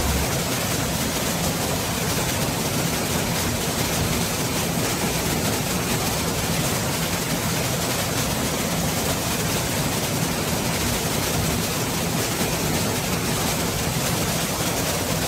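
Waterfall pouring into a plunge pool, close by: a steady, even rush of falling water.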